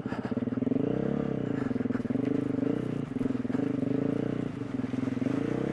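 KTM 350 EXC-F's single-cylinder four-stroke engine running at low revs off-road, with its pitch rising and dropping back a few times under light throttle.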